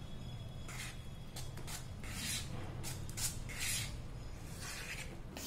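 Steel spoon stirring thick, wet oat batter in a plastic bowl, scraping against the bowl and mixing in milk: a series of uneven swishing, scraping strokes.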